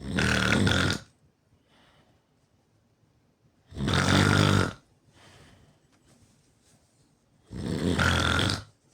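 A person snoring pretty loud: three snores about a second long each, coming roughly every four seconds, with faint breaths between them.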